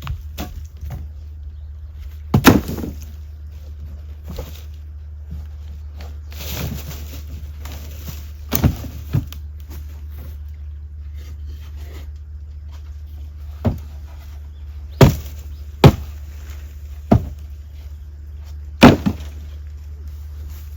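A series of sharp knocks or blows, about eight of them at irregular intervals one to four seconds apart, over a steady low hum.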